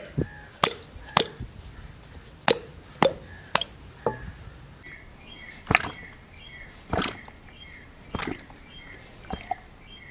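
Sharp knocks of cooked beef shank bones being tapped and shaken over a metal cooking pot, about nine knocks at uneven intervals, to knock the marrow out of the bones.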